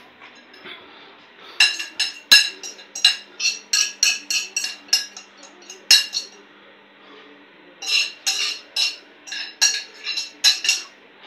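Metal cutlery clinking and scraping against china plates as food is scraped from one plate onto another: quick sharp clinks in two spells, with a short pause about two-thirds of the way through.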